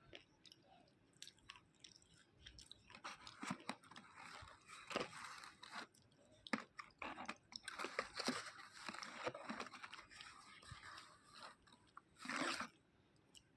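Crunchy food being bitten and chewed: a run of crackly crunches and chews, then one louder crunch near the end.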